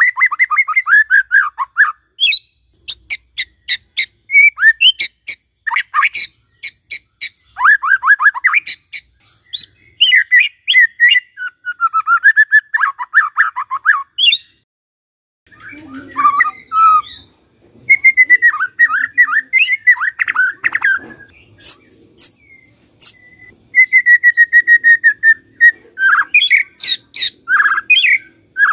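White-rumped shama (murai batu) singing a fast, varied song: clear whistled phrases and falling trills mixed with sharp clicking notes, with a short pause about halfway through.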